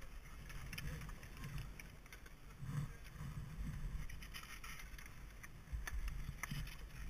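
Skier shuffling on skis over packed snow, with light scrapes and scattered clicks of skis and poles, over an uneven low rumble of wind on the head-mounted camera's microphone.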